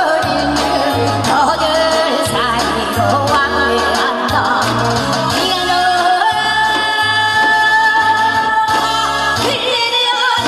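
A woman sings a Korean folk-style song into a microphone over an amplified backing track with a steady bass beat. In the second half her voice holds long notes with a wavering vibrato.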